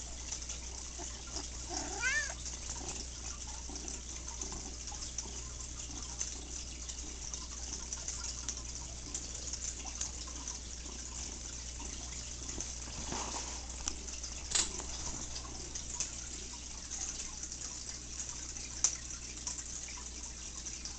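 A domestic cat gives one short meow about two seconds in, its pitch rising and then falling. A couple of sharp clicks come later, over a steady low hum and hiss.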